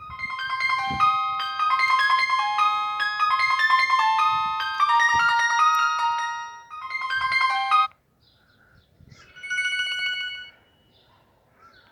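Alcatel OT-2012D mobile phone playing a ringtone through its small speaker: an electronic melody of quick stepping notes that cuts off about eight seconds in. About a second and a half later a short held chord-like tone sounds briefly.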